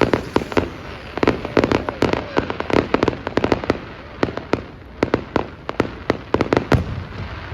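Fireworks display: a rapid, irregular volley of bangs and cracks, several a second, thinning out near the end.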